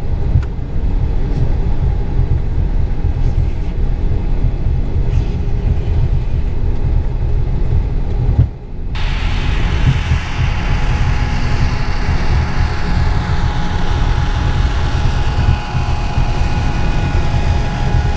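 Vickers VC10's four Rolls-Royce Conway jet engines running at taxi power: a deep, steady rumble with a faint whine. After an abrupt break about nine seconds in, a sharper jet whine and high hiss join the rumble as the aircraft rolls past close by.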